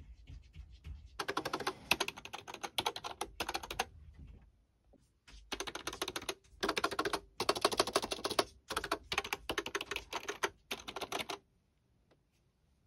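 Typing on an ACTTO B503 retro Bluetooth keyboard: several runs of rapid key clicks separated by short pauses, the longest pause about four to five seconds in, stopping about a second and a half before the end.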